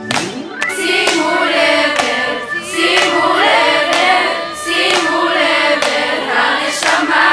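A choir of girls' voices singing the chorus of a Hebrew pop song to hand claps, with the bass dropped out of the mix.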